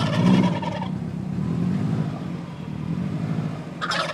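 Turkeys gobbling twice, each a rattling call about a second long, one at the start and one near the end, over the steady low hum of a car engine running.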